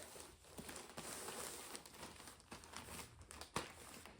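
Faint crinkling and rustling of plastic packaging, with scattered small clicks, as a plastic-wrapped pack of kitchen paper towels is handled.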